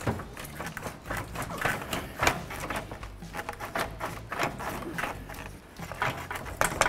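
Volvo XC90 radiator and plastic fan shroud knocking and rattling against the surrounding parts as they are wiggled down out of their mounts: an irregular run of clacks and scrapes.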